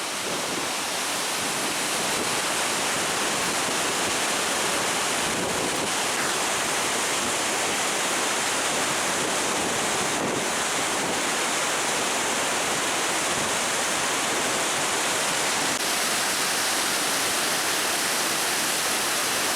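Waterfall and white water of the Merced River, a steady, unbroken rush of falling and churning water, running at an exceptionally high snowmelt flow.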